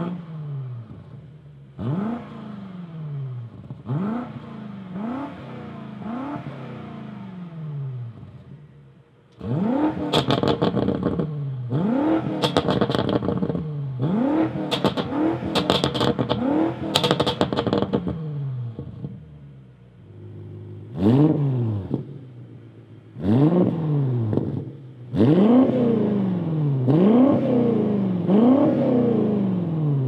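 BMW F90 M5's twin-turbo V8 revved in quick blips from idle through the factory M Sport exhaust, each rev rising and falling. For the first nine seconds or so the revs are quieter, with the exhaust valves closed. After that they are much louder and crackle with pops on the overrun, with the valves open.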